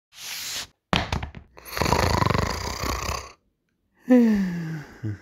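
A person's vocal noises for a cartoon character: a short breath, a few quick clicks, a long rattling noise with a fast pulse, then a voice sliding down in pitch in a groan about four seconds in.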